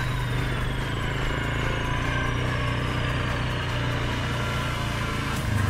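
Suzuki KingQuad 750 ATV's single-cylinder engine running steadily at low throttle while riding a dirt trail, with a faint high whine slowly falling in pitch. The engine gets louder near the end.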